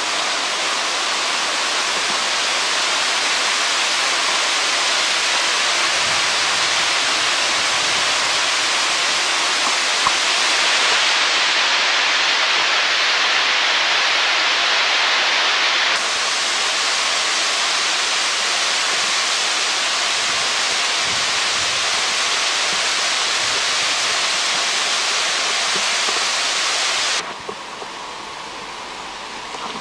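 A loud, steady hiss with no low rumble. It changes tone suddenly about halfway through and falls away abruptly to a quieter hiss near the end.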